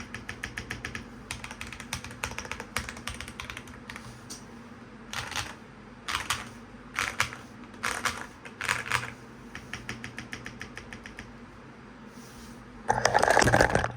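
Typing on a $20 modded keyboard: a fast run of key clicks, then several short clattering clusters of keystrokes, over a steady fan hum. Near the end there is a loud, rough burst of noise lasting about a second.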